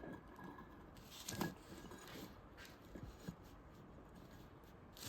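Faint handling noises as hands work Teflon rotor seal strips: a few light clicks and short rubs, the most distinct about a second and a half in.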